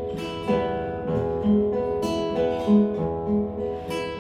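Acoustic guitar music: slow plucked notes and chords ringing one into the next, with no singing.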